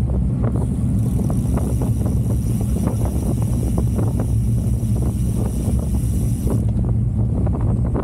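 Wind buffeting an action camera's microphone during a fast road bike ride in strong wind: a steady heavy rumble with many short ticks through it.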